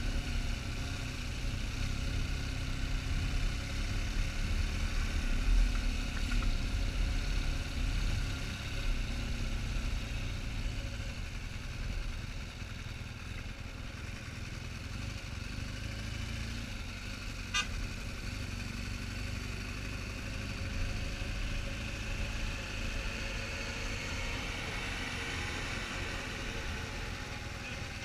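BMW adventure motorcycle engine running steadily at low speed under a fluttering low rumble, with one sharp click about two-thirds of the way through.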